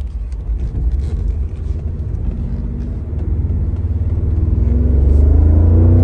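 A Mercedes G63's M278 5.5-litre twin-turbo V8, heard from inside the cabin while driving, pulls away with a low drone. Over the last couple of seconds the drone rises in pitch and gets louder as the engine speeds up.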